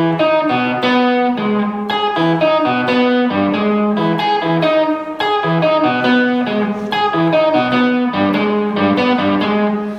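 Electric guitar through an amp playing a repeating line of quick single notes, mixing fretted notes with ringing open strings so the pitch jumps widely. The tone is a little synth-like.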